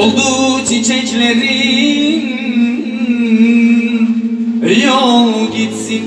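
Live Turkish arabesk band with a male singer, amplified, the voice holding a long wavering line and then sliding down in a falling run near the end before starting a new phrase.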